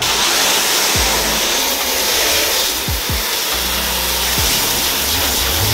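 Garden hose spray nozzle jetting water onto the fibreglass floor of a boat hull: a steady hiss that starts suddenly and keeps on.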